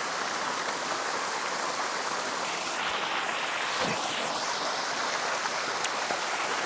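Small waterfall, about ten feet tall, with water falling and splashing in a steady rush.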